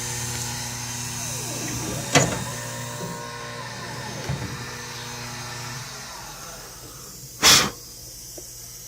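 Small CNC milling machine running a spiral pocketing cut in pine: the axis stepper motors whine, rising and falling in pitch as the axes change speed, over the machine's steady hum. There is a sharp click about two seconds in, and the motor sounds die down near the end, where a short, loud hissing burst stands out.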